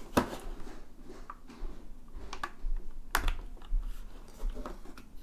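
Key presses and clicks on a HyperX Alloy FPS RGB mechanical keyboard with Kailh Silver Speed linear switches, a few scattered strokes with a louder click just after the start and another about three seconds in.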